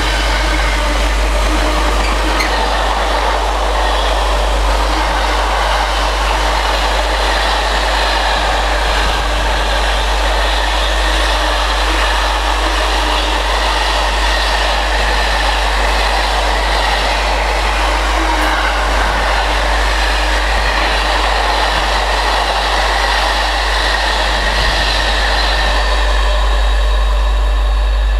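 Intermodal container train's freight wagons rolling past at speed, a steady rush of wheel-on-rail noise.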